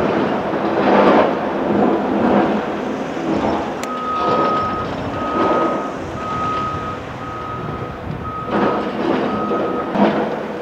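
CAT 374F hydraulic excavator digging into blasted quarry rock: the bucket scrapes and rocks clatter over the steady run of its diesel engine. About four seconds in, a reversing alarm starts: six steady beeps at one pitch, just under a second apart.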